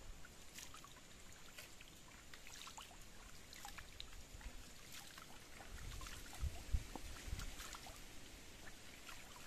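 Faint water trickling over rocks, with small scattered clicks and a few low thumps about six to seven and a half seconds in.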